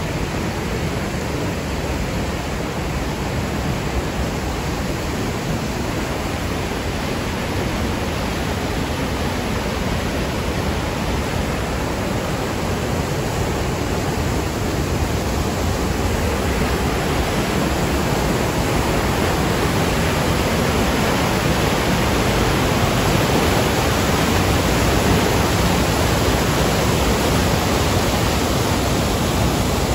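Whitewater rapids of Johnston Creek rushing through a narrow rock canyon: a loud, steady roar of churning water that grows a little louder in the second half.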